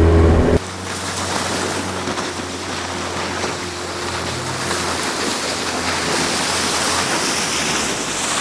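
An outboard motor runs loud up close for about half a second and cuts off abruptly; then small waves wash on a sandy shore, under the faint steady drone of an outboard boat approaching across the water.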